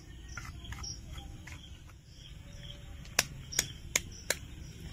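Crickets chirping faintly in the background, with four sharp clicks or knocks in the last two seconds.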